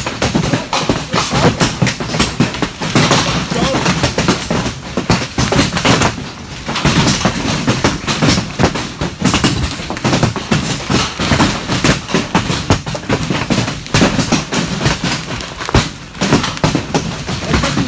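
Heavy hail pounding on a metal barn roof, a loud, dense, unbroken clatter of hailstone impacts.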